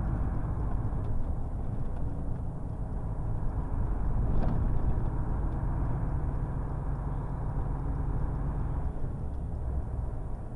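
Heavy truck's diesel engine running steadily while driving, a continuous low rumble.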